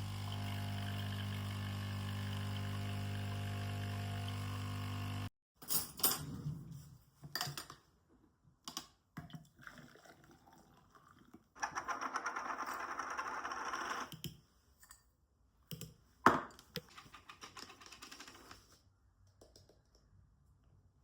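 An electric appliance hums steadily, then cuts off abruptly about five seconds in. Scattered clicks and knocks follow, then a couple of seconds of dense buzzing rattle and one sharp knock.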